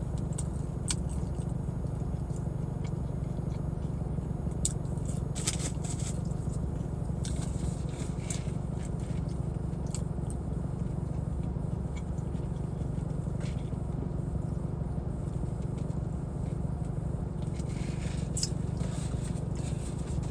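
Steady low rumble of a car left running with its air conditioning on, heard from inside the cabin, with scattered small clicks and scrapes of eating: biting, chewing and handling food.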